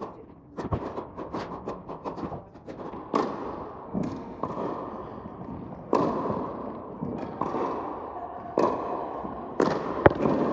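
Tennis balls being served and struck with rackets: a string of sharp hits a second or two apart, each echoing in a large indoor tennis dome.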